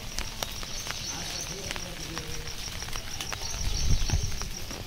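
Outdoor ambience: faint distant voices, scattered short clicks and a steady high band of chirping, with a low rumble swelling about four seconds in.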